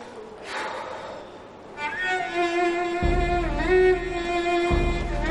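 Background drama score: a violin melody of long held notes comes in about two seconds in, with a low sustained bass underneath from about a second later.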